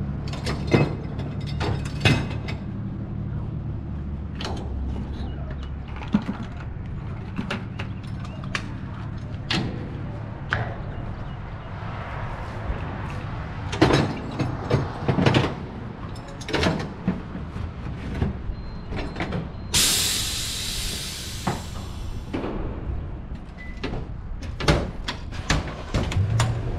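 Peterbilt 389 semi-truck engine idling under a string of sharp metallic clanks and knocks. About twenty seconds in comes a loud two-second hiss of released air.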